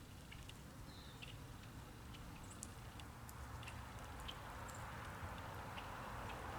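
Small wild birds at a feeder calling with scattered short, high chips and tweets, over a steady low background rumble.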